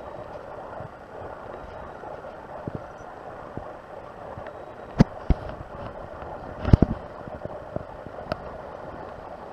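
Steady outdoor background hiss and rumble, with a few sharp knocks and clatters about halfway through as a cat clambers onto a metal-framed garden chair.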